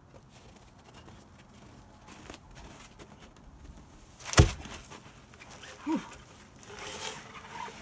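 A single heavy thud about halfway through as a large frozen birch log is set down hard on the snowy ground, followed a second and a half later by a short grunt of effort and some shuffling.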